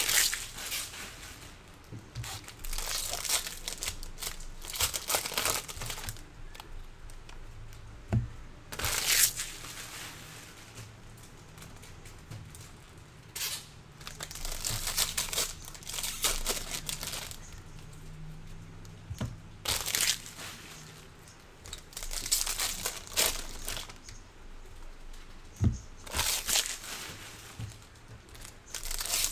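Foil wrappers of Bowman baseball card packs crinkling and tearing open, in repeated bursts every few seconds.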